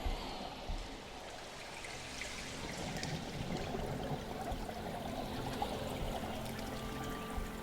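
Underwater bubbling and rushing water, typical of a scuba diver's exhaled bubbles heard on an underwater camera, swelling and easing. Faint steady tones come in near the end.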